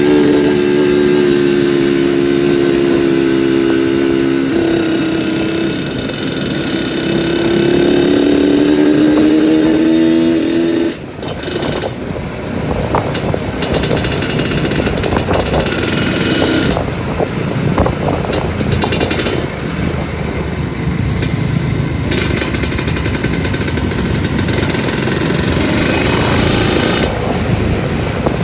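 Two-stroke trail motorcycle engine running under load, its pitch rising and falling with the throttle. About eleven seconds in, the note drops suddenly and turns rougher, with many short knocks and rattles.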